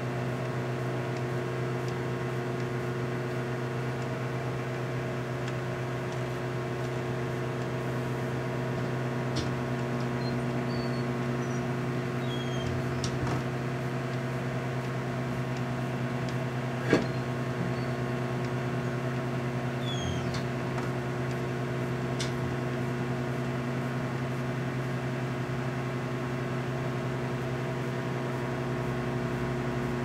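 Microwave oven running with a steady low hum. A few faint clicks and ticks sound over it, the sharpest about seventeen seconds in.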